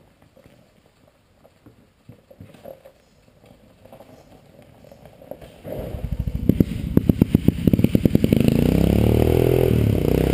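Faint clatter, then about five and a half seconds in an ATV engine starts: it sputters unevenly at first, then catches and runs, its revs rising and falling.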